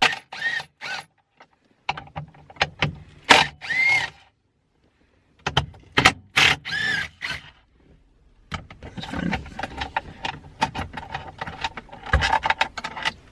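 Hand tools working on the 12mm bolts of a Toyota MR2 shifter plate: metal clicks and clinks with a few short squeaky chirps. There is a brief silence about four seconds in, and the clicking gets quicker and denser in the second half.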